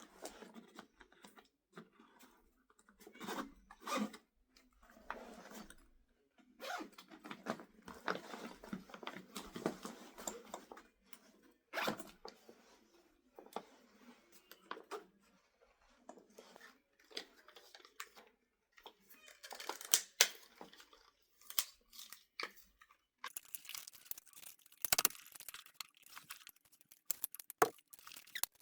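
New tool packaging being handled and torn open: irregular crinkling and tearing rustles of plastic and cardboard, with a few sharp snaps.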